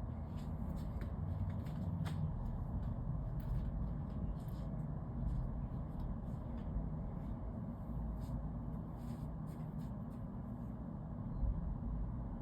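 Steady low rumble of distant city traffic, with faint light clicks scattered through it.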